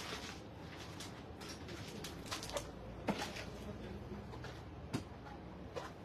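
A handful of light, sharp knocks and clicks from handling at the display cabinets, the sharpest about three seconds in and another about five seconds in, over a steady low room hum.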